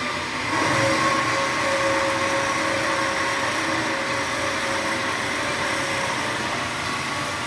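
Horizontal bandsaws running and cutting 1-inch stock: a steady machine noise with a high, steady ringing tone that comes in about half a second in.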